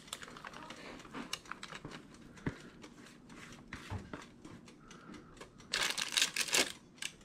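Orange cake batter poured from a plastic bowl into a parchment-lined air fryer basket: faint soft rustling and light ticks. Near the end comes a louder scraping as a silicone spatula scrapes the last batter out of the bowl.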